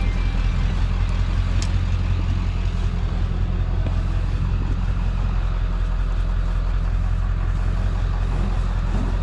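A vehicle engine idling with a steady low hum, and a faint click about a second and a half in.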